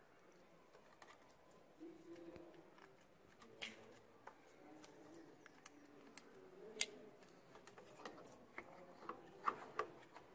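Faint clicks and light plastic taps from wire connectors and the plastic housing of a washing machine's replacement line filter being handled and fitted, with two sharper clicks at about three and a half and seven seconds in.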